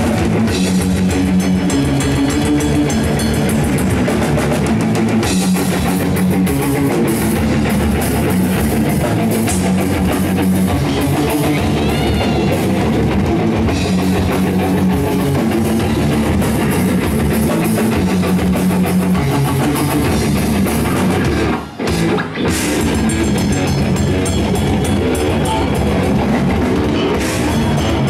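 Live progressive death metal band playing: distorted electric guitars and a drum kit, loud and dense. The music drops out for a moment about three quarters of the way through, then comes straight back in.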